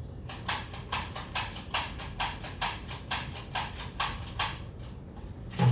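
A run of about ten light, evenly spaced clicks, a little over two a second, then one louder knock with a low thud near the end.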